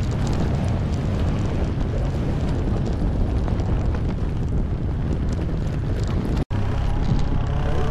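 Off-road vehicle engine running steadily under way, with wind noise; the sound drops out for an instant about six and a half seconds in.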